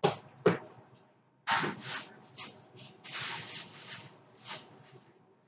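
Two sharp knocks as a book is set down, then a thin plastic bag crinkling and rustling in the hands for a few seconds, in bursts.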